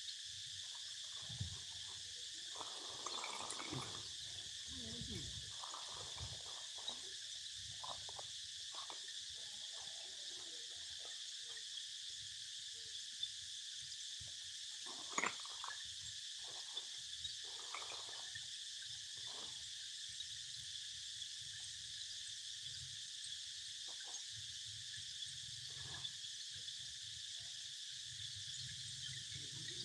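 Steady high-pitched drone of insects, crickets or cicadas, with a few faint rustles and knocks mixed in, the sharpest a single click about fifteen seconds in.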